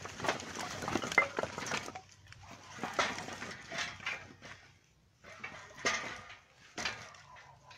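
Short cut firewood logs clattering and knocking against each other as they are piled into a metal stacking frame, in four bursts of knocks, the first the longest.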